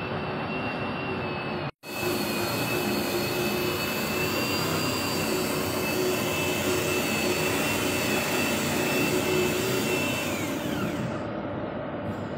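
A machine motor running steadily with a rushing noise and a high whine. The sound cuts out for a split second about two seconds in. Near the end the whine slides down in pitch as the motor winds down.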